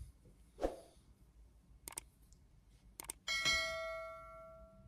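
Subscribe-button animation sound effect: two quick double mouse clicks, then a bell-like notification chime rings with several tones and fades away over about a second and a half.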